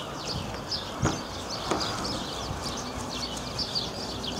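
Small birds chirping continuously, with a couple of light clicks about a second in and just under two seconds in.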